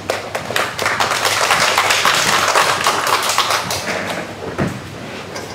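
Audience applauding, swelling to its fullest about two to three seconds in, then thinning to a few scattered claps near the end.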